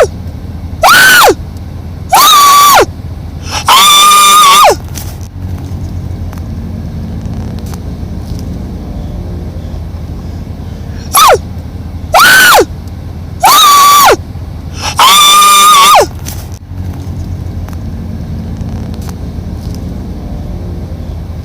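An animal giving loud, drawn-out calls that rise and fall in pitch: three in a row near the start, then four more in a row around the middle. A steady low hum runs underneath.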